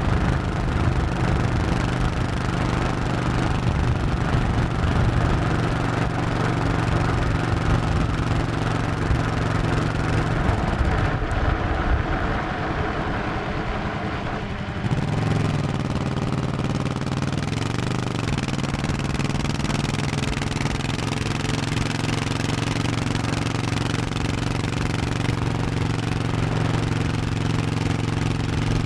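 1100cc Honda motorcycle engine running under way on the road. About ten seconds in it eases off and goes quieter for a few seconds, then pulls again, with its pitch dipping and rising once a few seconds later.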